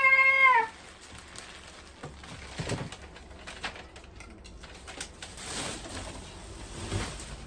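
A high voice slides up into a loud, held note that ends about half a second in, an excited exclamation as more crab is poured out. After that come only faint clicks and crackles of crab shells being cracked and eaten.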